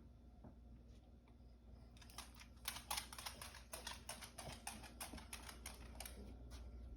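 A dog eating fast: a rapid run of sharp clicks from its chewing and eating, starting about two seconds in and stopping near the end.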